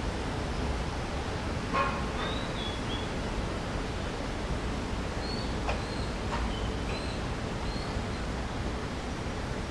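Steady outdoor hiss of a hillside tram stop's ambience, with several short, high bird chirps and a couple of faint clicks.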